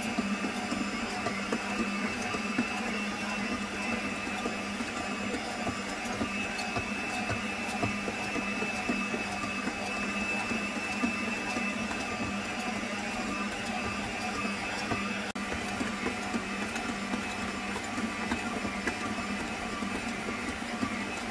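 Electric stand mixer motor running steadily while it kneads a bread dough, with a brief dropout about fifteen seconds in.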